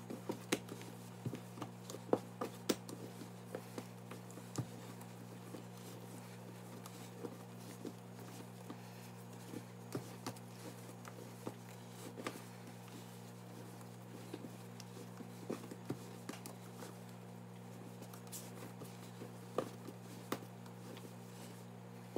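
Hands kneading bread dough on a countertop: soft, irregular pats and taps as the dough is pushed, folded and turned, thickest in the first few seconds, over a steady low hum.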